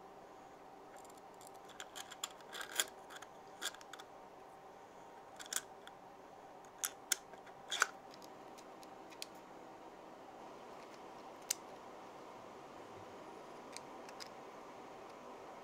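Light clicks and taps of 3D-printed plastic parts being handled: landing-gear pieces, the stand's small drawer and its base. The clicks come in a cluster over the first half, then only a few, over a faint steady hum.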